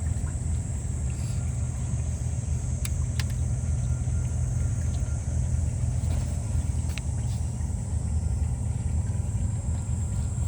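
Fishing boat's engine running steadily, a low rumble with a thin high whine over it. A few sharp clicks or knocks come about three seconds in and again about seven seconds in.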